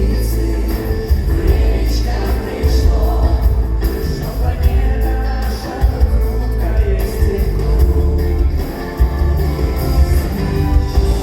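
Live pop song played loud by a band with singing: heavy steady bass and a regular beat under held chords and a sung melody.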